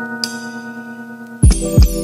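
Background music: held bell-like chime tones, then about 1.4 s in a beat drops in with heavy bass-drum hits.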